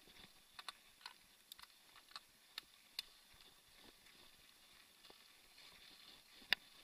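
Mountain bike rolling over a rough dirt trail: faint irregular clicks and knocks of the bike rattling over bumps and stones, over a faint steady hiss, with one sharp louder knock near the end.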